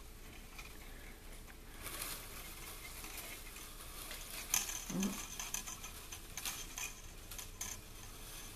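Faint scratching and light ticking of bundled thin wire strands being twisted and handled by hand, with a sharper click about halfway through.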